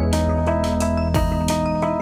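Background music with a steady beat and held keyboard-like tones.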